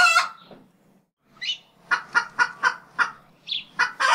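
A string of short, harsh animal-like calls repeated about four times a second, with a pause of about a second after the first one, ending in an abrupt cutoff.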